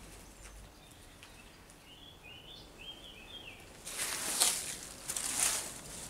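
Two footsteps scuffing on a floor strewn with dry leaves and grit, about four and five seconds in. Before them, in a quiet stretch, a bird gives a few faint short chirps.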